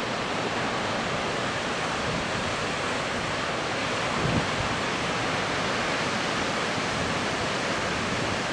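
Heavy storm surf breaking against rocky cliffs: a steady wash of crashing water and spray, with a brief low thump about four seconds in.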